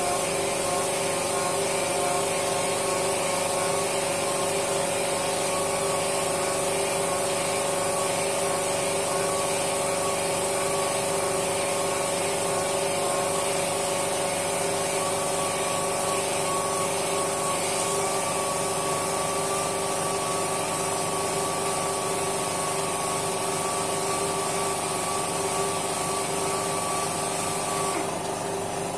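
Random orbital sander running steadily against a wooden leg, a constant whine with a high hiss on top; the hiss drops away near the end.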